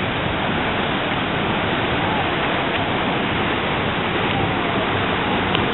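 Turbulent whitewater pouring out of a pumping station's outlet: a steady rushing noise that does not let up.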